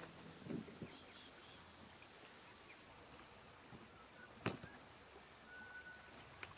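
Steady high-pitched insect chorus, with a single sharp knock about four and a half seconds in and a fainter click near the end.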